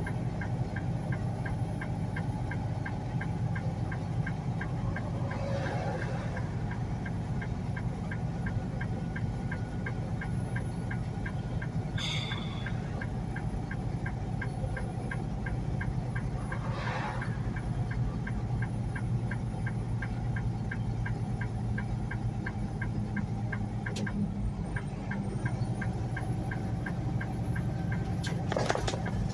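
Semi truck's diesel engine running steadily, heard inside the cab while driving, with a fast, even ticking throughout and a brief swish about every five or six seconds.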